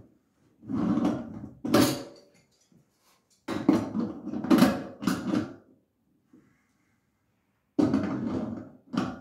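Stainless steel basket strainer being turned by hand in a stainless steel sink's drain opening, metal rubbing and creaking against the sink in four bursts of a second or two each.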